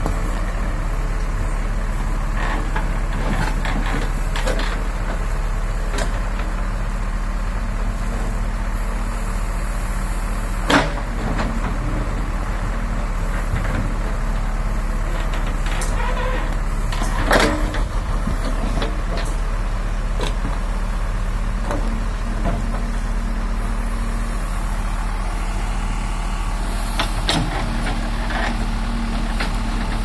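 JCB backhoe loader's diesel engine running steadily under load as the backhoe digs. A few sharp clanks from the steel bucket striking stones cut through it, the loudest about a third and halfway in.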